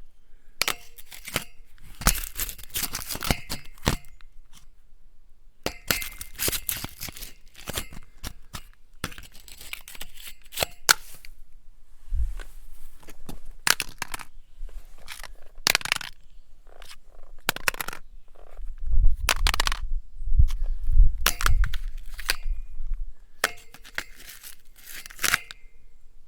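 An object grating against metal: bursts of rough, rapid scraping strokes with a faint metallic ring, broken by short pauses, and heavier low knocks around the middle and again later.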